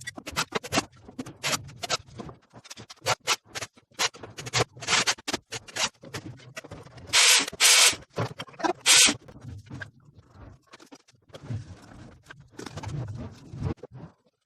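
Irregular taps, clicks and scraping of hand work on material, with three short, louder hissing bursts around the middle.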